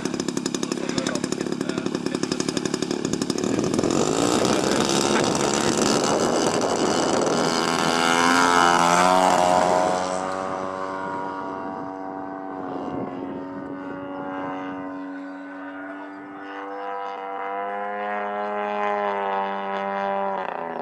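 Desert Aircraft DA-85 single-cylinder two-stroke petrol engine of a quarter-scale Bf 109 G model plane, running with a rapid pulsing beat at taxi throttle, then opened up for the takeoff run. It is loudest as the plane passes about eight to nine seconds in, then drops in pitch and drones more quietly as the plane climbs away.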